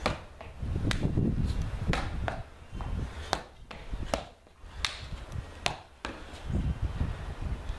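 Sharp slaps of hands striking hands and body during a Kenpo karate form, a few a second at irregular spacing with a brief pause in the middle, over low thuds and scuffs of shoes on a concrete floor.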